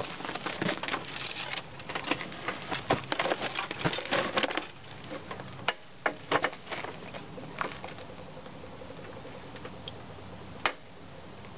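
Crunching on gravel and rattling handling noises as a walk-behind rotary lawn mower is tipped up onto its side, dense for about four seconds, then only a few scattered sharp clicks.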